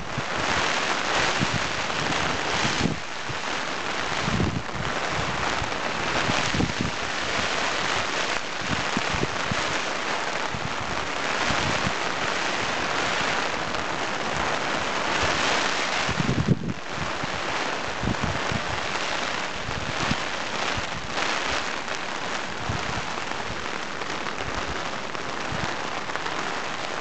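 Heavy rain falling onto a pond and its grassy bank, a steady loud hiss. Short low gusts of wind buffet the microphone every few seconds.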